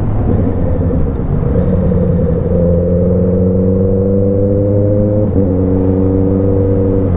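Motorcycle engine pulling steadily at town speed, its pitch rising slowly as it gains speed, with a brief dip about five seconds in like a gear change, then running evenly. Low wind rumble on the camera microphone underneath.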